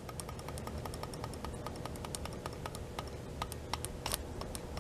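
Faint, irregular ticking and clicking as power leads are held on the terminals of a replacement electric fuel pump for a 2013 Suzuki GSX-R600, with a faint steady hum underneath and no running whir: the pump is seized ("totally froze up").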